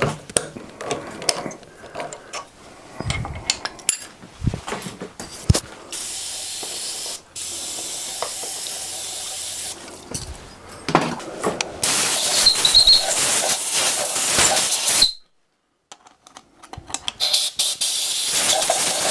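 Aerosol spray can hissing in long steady bursts: one of about four seconds with a short break, a louder one of about three seconds, and another starting near the end. Light clicks and knocks of handled metal parts come before the spraying.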